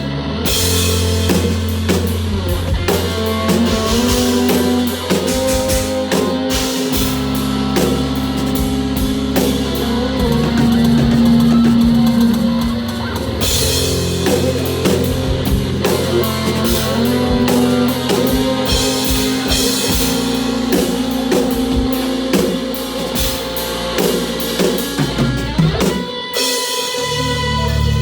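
Live instrumental progressive rock from a trio: Chapman Stick bass lines and touch guitar over a busy drum kit. The drums break off briefly near the end, leaving the low sustained notes before the beat comes back.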